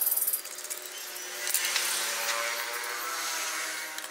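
Machete blade scraping along a bamboo cane to trim off its nodes: a brief scrape at the start and a longer one from about one and a half seconds in, with a sharp tick as it begins.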